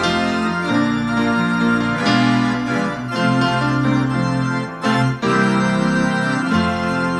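Organ music: sustained chords that change every second or two, with a brief break about five seconds in.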